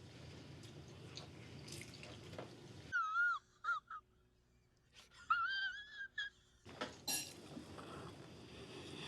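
A few high-pitched, wavering squeaks in two short groups about two seconds apart, set against dead silence, with faint room tone before and after.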